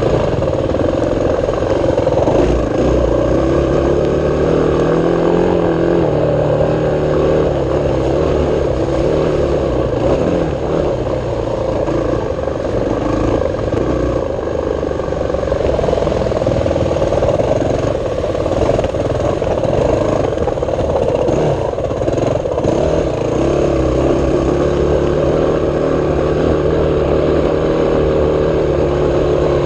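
Off-road vehicle engine running continuously while riding a rough dirt trail, its pitch rising and falling with the throttle.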